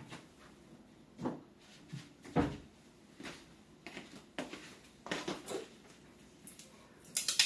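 Scattered knocks and clicks of hard objects being handled, a handful spread over several seconds with the loudest about two and a half seconds in, and a quick run of clicks near the end.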